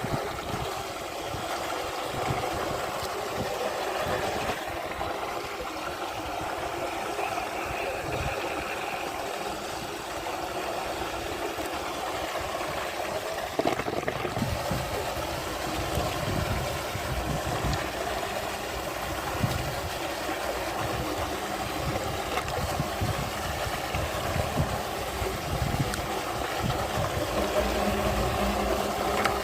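Steady rush of churning water, with a low, uneven rumble underneath.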